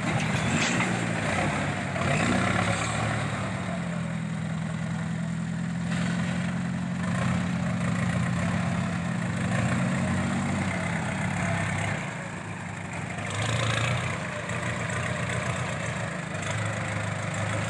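Farm tractor's engine running at a steady speed, its note changing and swelling briefly in the second half as it works in the mud.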